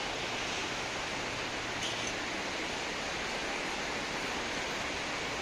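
Steady rain falling on leafy trees and wet pavement, an even hiss with no distinct drops or events.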